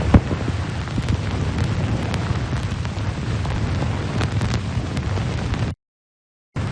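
A steady, loud low rumbling roar with scattered crackles and one sharp crack just after the start. It cuts off dead for under a second near the end, then resumes.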